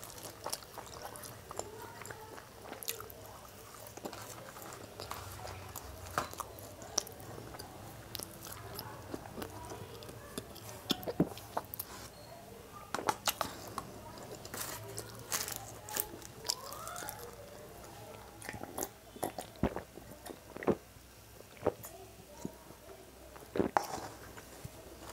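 Close-miked chewing of French fries: wet mouth sounds with scattered sharp clicks and light crunches.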